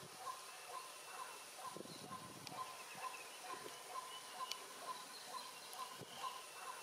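A bird calling a steady series of short, evenly spaced notes, just over two a second, with faint rustling underneath.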